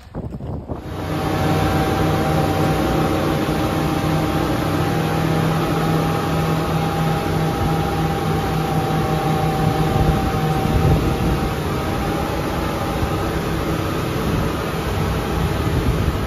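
Twin outboard motors, about 500 horsepower together, driving a speedboat at speed, heard from inside its cabin: a loud, steady engine drone with a higher steady tone over it, and the rush of water along the hull. It starts about a second in.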